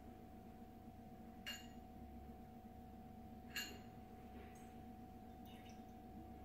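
Two light ringing clinks of a metal bar jigger against a cocktail shaker tin as ingredients are measured in, about two seconds apart, over a faint steady hum.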